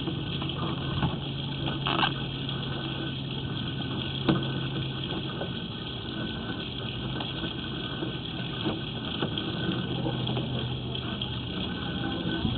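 An engine idling steadily in the background: an even low hum under a hiss, with a couple of faint clicks.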